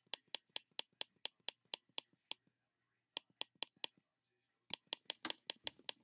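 Rapid computer mouse clicks, about four a second, in three runs with short pauses between them.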